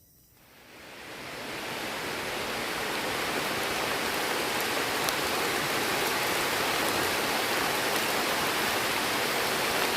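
Heavy rain pouring down as a dense, steady hiss that swells up over the first two seconds.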